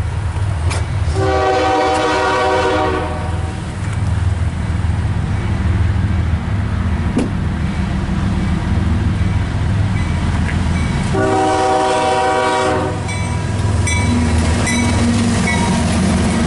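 CSX freight train's diesel locomotives sounding a multi-chime air horn in two long blasts, about a second in and again about eleven seconds in, over the steady low rumble of the engines as the train approaches and the lead locomotives pass close by.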